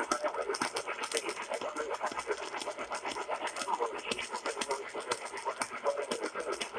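Crackling radio static: a dense run of irregular crackles and clicks over a hiss.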